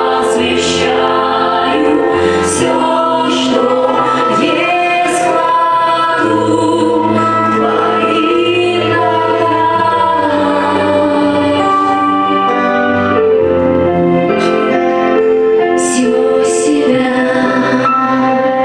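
Choir singing a Christian worship song over held musical chords.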